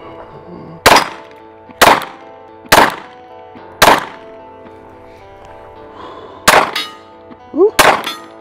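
Glock 43X 9mm pistol firing single shots: four evenly spaced, about one a second, then a pause of a couple of seconds and two or three more shots in quicker succession near the end.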